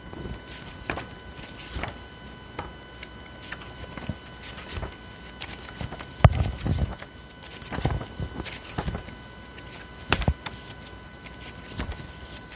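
Paper pages of a picture book being handled and flipped: irregular soft taps and rustles, with a couple of sharper knocks, over a faint steady electrical whine.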